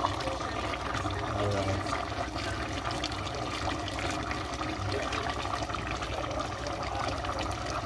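Papaya boiling in coconut milk in a metal pot, a steady bubbling and popping, with a spoon stirring through it.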